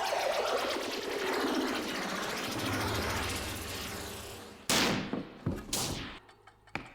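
Billy Bones' exaggerated cartoon sneeze: a long, loud, noisy blast that slowly fades over about four seconds, then two short sharp bursts near the end.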